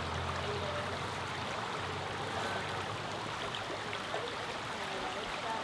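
Steady rushing of a small trout stream flowing over rocks.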